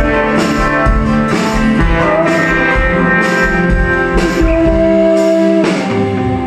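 Live music: an acoustic guitar strummed about once a second, with long held notes over it.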